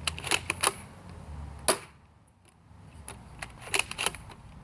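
Sharp plastic clicks and snaps from a Magnum Super Drum Blaster foam-dart blaster being primed and fired. A quick run of clicks comes at the start, one loud snap about a second and a half in, and a few more clicks near the end.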